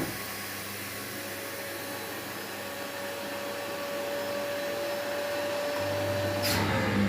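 Daewoo DWD-FT1013 washing machine in its wash cycle: the drum motor pauses, leaving a steady whine and hiss. About six seconds in, the motor starts turning the drum again, with a brief swish of water.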